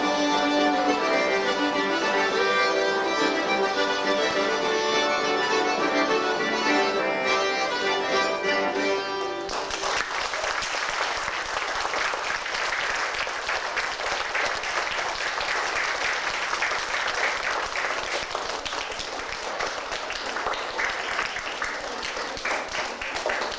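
Cajun band playing, with the accordion leading over fiddle and guitar; the tune ends abruptly about nine seconds in. Audience applause follows for the rest.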